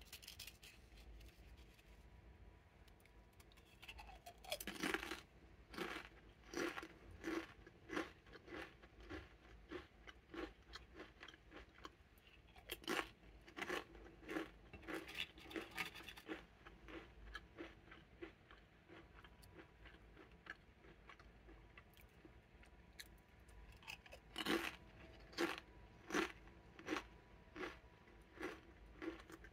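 Someone biting into Pringles nori (seaweed-flavour) potato crisps and chewing them. A loud crack comes about five seconds in, followed by a steady run of crunches well over once a second. A second bite comes near the end, and the chewing crunches start again.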